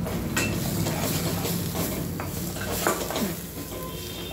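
A slotted stainless steel spoon stirring and scraping thick onion-and-spice masala around a stainless steel kadai, with scattered metal-on-metal clinks over a low sizzle of the masala frying.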